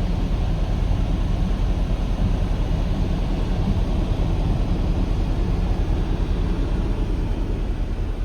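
Steady low rumble of a truck on the move, engine and road noise heard from inside the cab.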